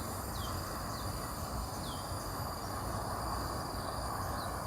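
Outdoor insect chorus: a steady high-pitched insect drone over a low rumble, with a few short, falling chirped calls at irregular intervals.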